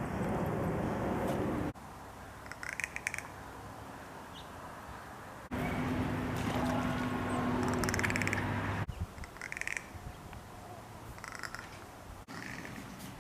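Crow's rattle call: several short bursts of rapid clicking, spaced a second or more apart, with a low steady background rumble in some stretches.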